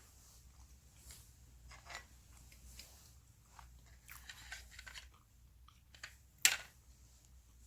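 Close-up chewing of soft, chewy Spam: scattered small, wet mouth sounds, with one much louder sharp click about six and a half seconds in.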